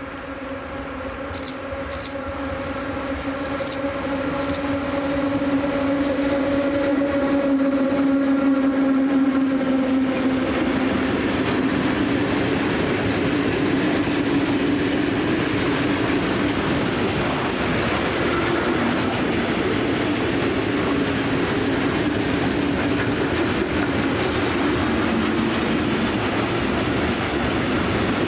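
Electric freight locomotive passing, its steady droning tone growing louder and dipping slightly in pitch as it goes by about ten seconds in. A long train of open freight wagons follows with a steady rumble and clickety-clack of wheels over the rail joints.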